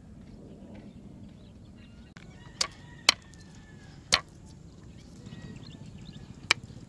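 Knife chopping garlic on a wooden cutting board: four sharp knocks of the blade hitting the board, irregularly spaced, starting about two and a half seconds in.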